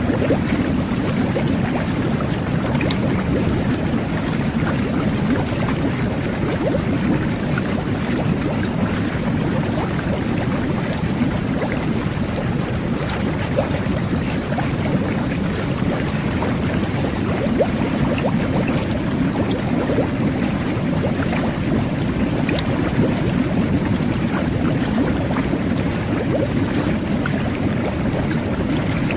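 Jet bath (whirlpool tub) running: water jets churning and bubbling steadily, a dense low rush of water with scattered small pops.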